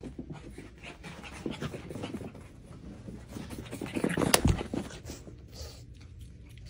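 Pug panting hard as it runs about, with one sharp knock about four seconds in.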